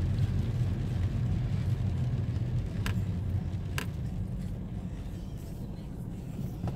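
Steady low rumble of a car driving slowly on a wet road, heard from inside the cabin, with two light clicks about a second apart in the middle. The rumble eases slightly toward the end.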